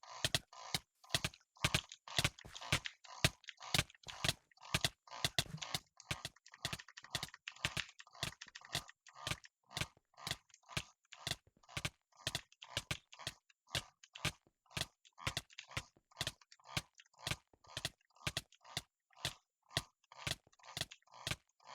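A4Tech Bloody A7/A70 gaming mouse buttons clicking repeatedly, about two to three sharp clicks a second, each press and release a crisp snap.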